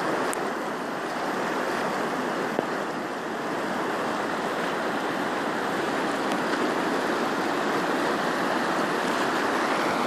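River in flood, its muddy water rushing and churning past the bank in a steady, unbroken wash of noise.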